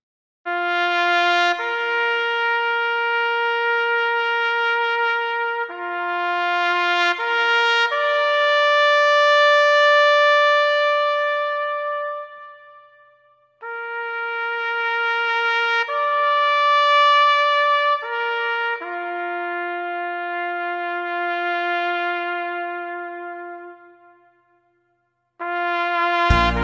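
Solo trumpet playing a slow call of a few long held notes in two phrases, with a brief pause about halfway. Near the end a louder, fuller sound comes in.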